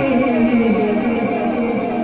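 A man reciting a manqabat in a melodic, sung voice over a public-address system, drawing out long wavering notes.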